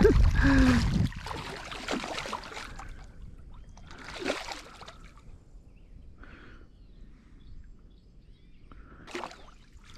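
Water splashing as a traíra strikes at a floating frog lure in shallow water. The loudest splash comes in the first second, followed by smaller scattered splashes at the lure a few seconds apart.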